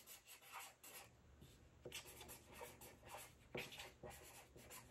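Faint scratching of a marker writing on a sheet of paper, in short irregular strokes.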